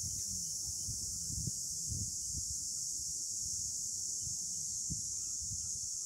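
Steady high-pitched insect chorus droning without a break, with faint low rumbles of wind on the microphone underneath.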